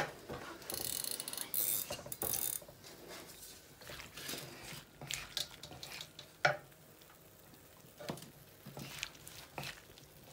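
Silicone spatula and wooden spoon stirring and scraping diced tomatoes around a nonstick wok: a sharp knock at the start, a brief hiss about a second in, then scattered scrapes and taps.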